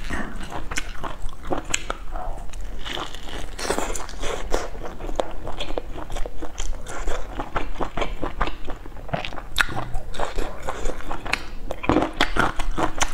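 A person biting and chewing crispy deep-fried food: a dense run of crunches and crackles, irregular and quick.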